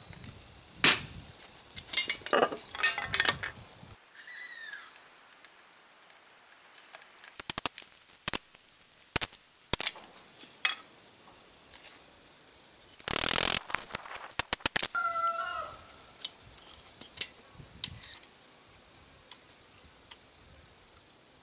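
Sharp clicks and light metal taps as a bent grille trim strip is pressed and levered with a small bar against a rolled spiked rubber mat on a wooden board. About halfway through there is a rasping rustle lasting about two seconds.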